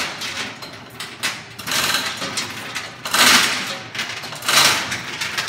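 Manual chain hoist worked by hand: its chain rattles and clinks in a series of bursts, one with each pull on the hand chain, while the hoist carries the weight of a 1000 lb jointer.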